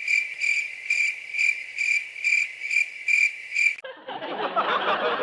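Cricket-chirping sound effect, a steady pulse of chirps about two to three a second that starts and cuts off abruptly, the stock cue for an awkward silence. About four seconds in, it gives way to a murmur of voices with snickering.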